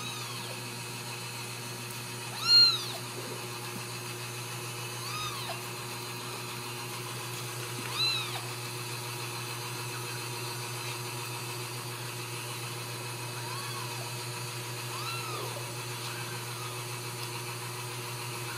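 Ragdoll kitten meows: short, high calls that rise and fall, coming every couple of seconds, the loudest about two and a half seconds in. A steady low hum runs underneath.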